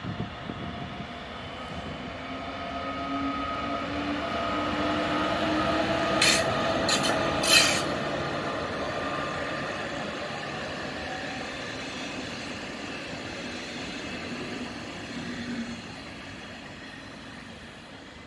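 Class 146 electric locomotive hauling double-deck coaches past, its traction equipment giving a whine of several steady tones that rises slightly in pitch over the rumble of the wheels on the rails. Two short sharp noises come about six and seven and a half seconds in, and the sound fades near the end as the train draws away.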